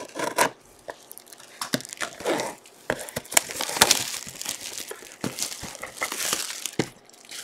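Plastic shrink wrap crinkling and tearing as a sealed box of trading cards is unwrapped by hand: an irregular run of crackles and rips, busiest in the second half.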